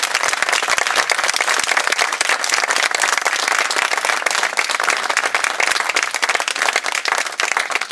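Audience applauding: many people clapping steadily at the end of a speech.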